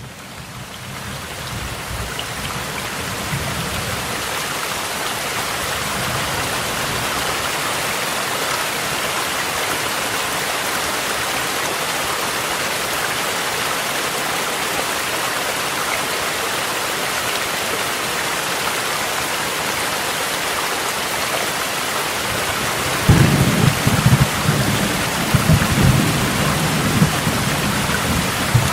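Steady heavy rain mixed with the rush of a mountain stream, fading in at the start. Low rolling thunder rumbles in several swells over the last six seconds.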